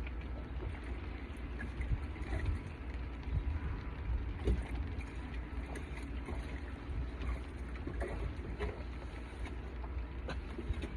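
Wind buffeting the microphone in a steady low rumble, with scattered light ticks and taps over it.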